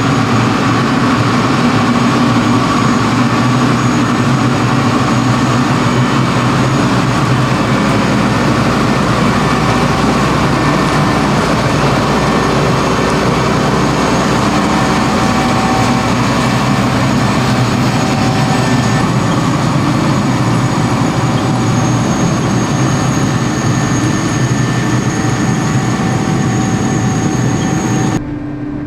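Dewulf RS3060 self-propelled potato harvester running, a loud, steady mix of engine and machinery noise. The sound drops abruptly just before the end.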